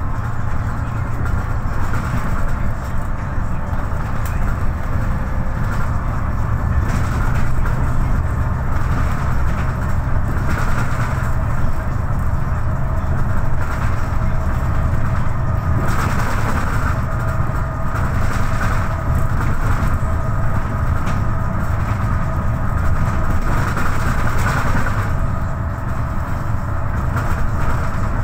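Cabin noise of a MAN NL263 low-floor city bus on the move: a steady low drone from its diesel engine and drivetrain, under road and tyre noise. Faint whining tones come in about halfway through.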